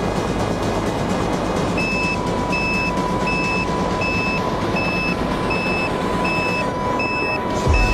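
Rushing wind and motor noise from an RC airplane's onboard camera. About two seconds in, a repeated electronic beep starts, about three beeps every two seconds, over a steady high tone.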